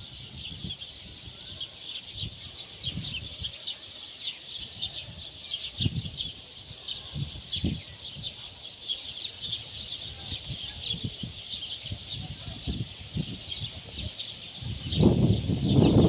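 A chorus of many small birds chirping continuously, with rapid overlapping high-pitched chirps and tweets. A low rumble swells up loudly near the end.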